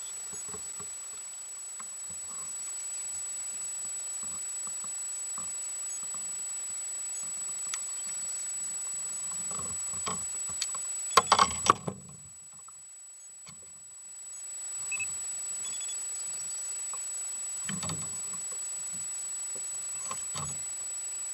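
Steady outdoor hiss of wind and lapping water with a thin, high, steady tone, and scattered small clicks and knocks from fish and lure being handled in a kayak; a quick cluster of louder clicks comes about halfway through, followed by a brief quieter stretch.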